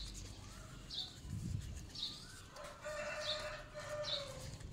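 A rooster crowing once, one long held call starting a little past halfway, over a small bird's high chirps repeating about once a second.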